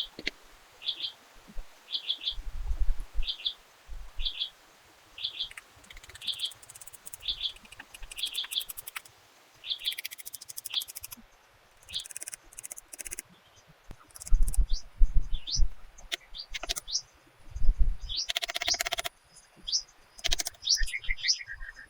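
Forest birds calling: one bird repeats a short high note about every 0.7 seconds for the first half, then other birds add quick chirps and short rising whistles. Several low thuds come in between, the loudest about two-thirds of the way through.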